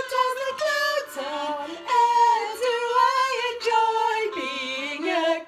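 Two women singing together, in long held notes that bend and slide in pitch.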